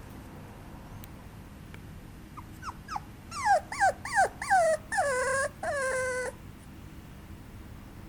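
Papillon puppy whimpering and yelping: a quick run of short yips that each drop in pitch and grow louder, then two longer drawn-out whines that stop abruptly.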